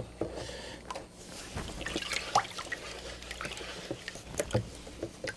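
Baking soda water splashing and dripping in a plastic tub as a steel knife blade is laid in and moved around to neutralize the ferric chloride etch: scattered small splashes and clicks.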